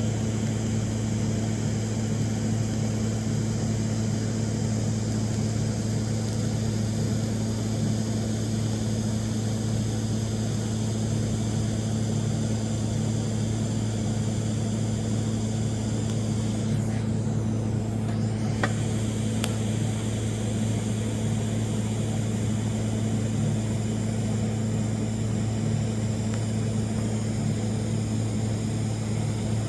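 TIG (argon) welding arc buzzing steadily as an exhaust pipe is fusion-welded without filler rod. The hum thins out briefly about two-thirds through, followed by two sharp clicks.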